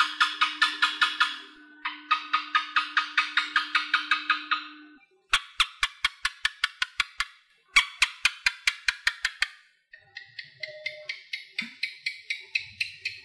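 Asian house gecko chirping: rapid runs of sharp, dry clicks, about six to eight a second, in several bouts separated by short breaks.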